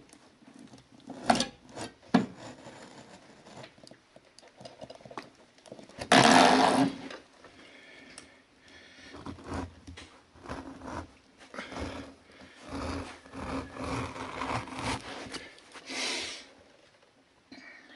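Razor carpet knife cutting through carpet and its backing around a nailed-down patch, in a series of irregular scraping strokes. The loudest stroke comes about six seconds in and lasts about a second.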